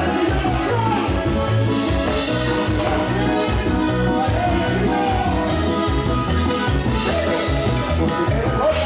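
Latin dance music with a steady, pulsing bass beat, playing loudly and continuously.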